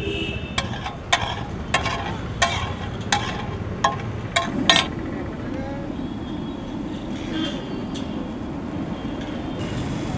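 Steel spatula clinking against a large flat pav bhaji griddle: about eight sharp, ringing metallic knocks in the first five seconds, over a steady background of street noise.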